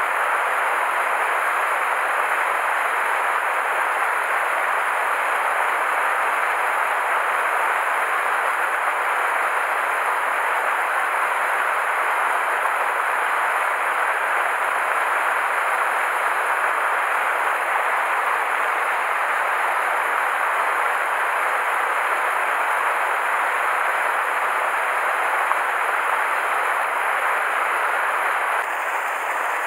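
Mountain stream water rushing steadily over rocks and a small cascade into a pool, dropping slightly near the end.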